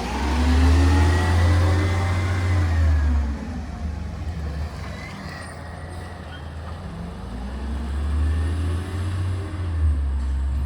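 Motor vehicle engines with a deep rumble, the engine pitch rising and then falling twice: once in the first three seconds and again from about seven seconds in.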